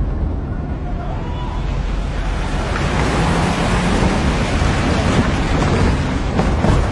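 Vehicles driving, a deep steady rumble of engine and road noise with a rushing sound that swells about two seconds in.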